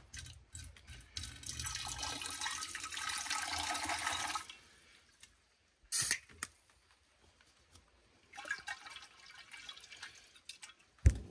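Hot water poured in a steady splashing stream from one glass beaker into a larger glass beaker, rinsing cemented silver powder, for about three seconds. A sharp glass click follows as the pouring beaker is set down. Near the end there is a shorter stretch of sloshing water as the big beaker is handled, then a sharp knock.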